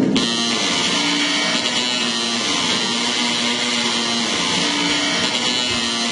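Ambient drone music: a steady hissing, buzzing wash with long low held notes stepping slowly between two close pitches. It takes over abruptly as louder music cuts off.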